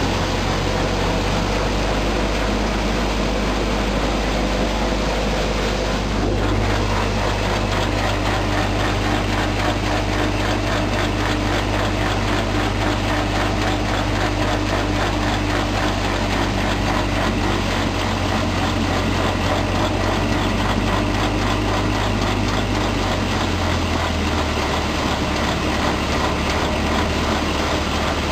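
Guru Hindustan Missile Model paddy thresher running steadily while threshing paddy: a loud, continuous mechanical clatter over a low hum that shifts slightly in pitch a couple of times.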